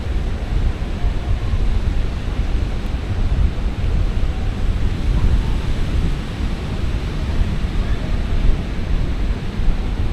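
Ocean surf washing on the beach, with wind buffeting the microphone in a steady low rumble.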